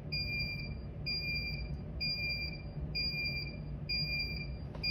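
Heat press timer alarm beeping: a short, high-pitched beep about once a second, five times in a row, signalling that the pressing time is up. A steady low hum runs underneath.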